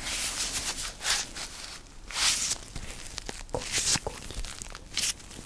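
White rubber gloves rubbed and crinkled together close to the microphone. The sound comes in irregular bursts of rustling with sharp clicks and snaps.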